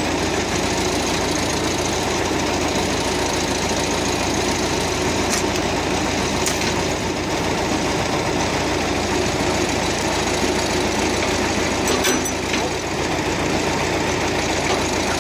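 The crane vehicle's engine running steadily, with a few faint clicks over it.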